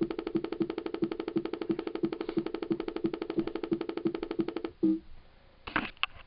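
2007 iMac making its fault noise after waking from sleep: a pulsing, buzzing tone, about four beats a second, that cuts off suddenly a little before the end. A few short clicks follow.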